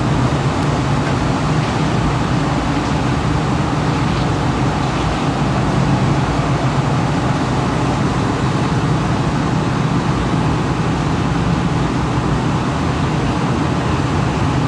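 Steady road traffic noise, a continuous even rumble with a low hum and no distinct events.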